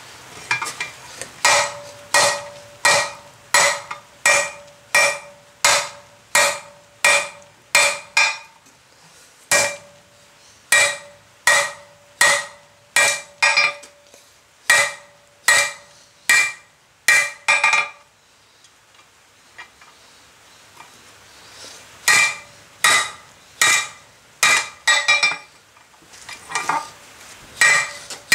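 Blacksmith's hand hammer striking red-hot steel bar on the anvil, drawing it out: steady blows about 1.4 a second, each with a short metallic ring. The hammering stops for about four seconds in the middle, then starts again.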